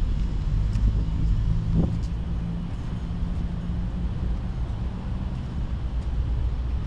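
A motor vehicle's engine running steadily: a low rumble with a steady hum.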